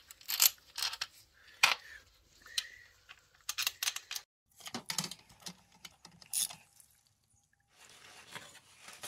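Scattered metallic clicks and clinks of a ratchet and socket worked on the bolts of a Honda Monkey 125's engine side cover, a few of them ringing briefly, with a pause of about a second near the end.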